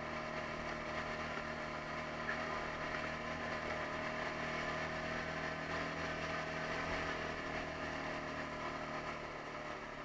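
Taotao 150cc ATV's single-cylinder four-stroke engine running at a steady speed as the quad rides along the trail.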